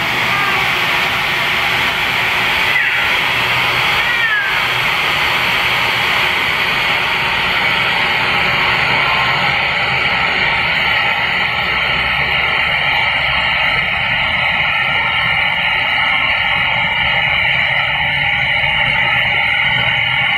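Hairdryer blowing steadily on a cat's fur while the cat meows over it, with short meows about three seconds in and again a second and a half later.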